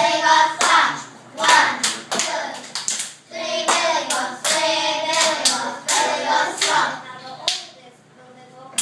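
A small group of young children singing together while clapping their hands; the singing and clapping die away near the end.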